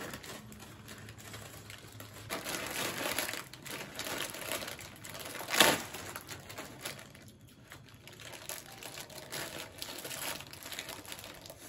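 Foil-lined Lay's crisp packets crinkling as they are handled, squeezed and picked at, with one sharp, louder crackle a little past halfway.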